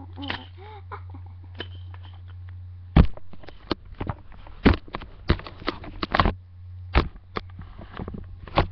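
A string of irregular knocks and clicks over a steady low hum, the loudest knock about three seconds in, then a dozen more.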